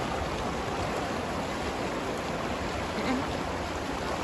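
Shallow, fast river rushing over rocks: a steady, even rush of water.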